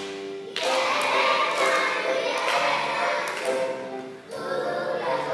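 Young children singing a song together over music, with brief breaks between phrases near the start and about four seconds in.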